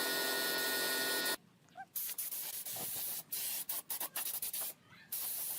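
A steady machine noise with a whine stops suddenly about one and a half seconds in, followed by a series of short bursts of hiss with brief gaps between them, like spraying.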